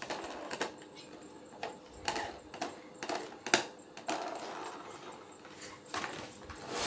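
Plastic toy construction vehicles, a tracked excavator and a dump truck, clicking and clattering as a toddler handles them: irregular light knocks and rattles, the sharpest about three and a half seconds in.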